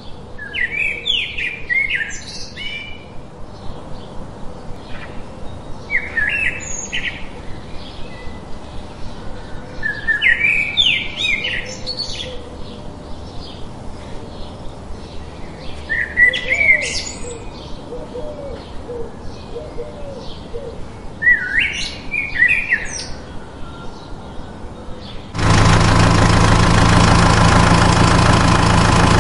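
A songbird singing short, quick chirping phrases about every five seconds. Near the end an engine sound cuts in suddenly, loud and steady like an idling tractor engine.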